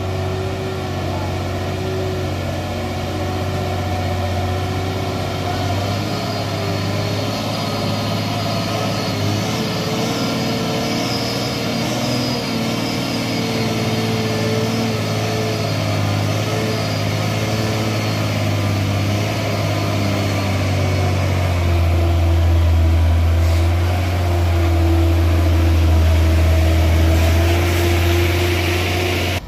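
Hino Ranger dump truck's diesel engine pulling steadily under heavy load in low gear as the loaded truck crawls through mud. About two-thirds of the way through, its low drone grows louder and deeper.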